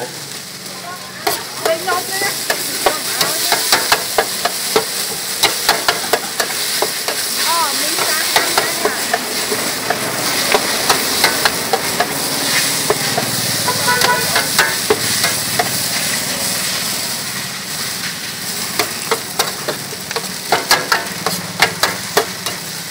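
Noodles and bean sprouts sizzling on a large shallow metal pan while a metal spatula scrapes and clacks against the pan as they are stir-fried. The scraping is busiest over the first several seconds and again near the end.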